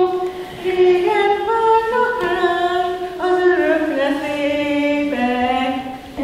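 A woman's voice singing unaccompanied, a slow melody of held notes that step up and down, each held about half a second to a second.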